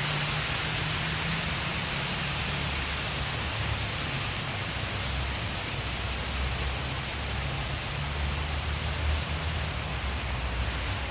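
Steady outdoor background hiss with a wavering low rumble underneath, without any distinct event.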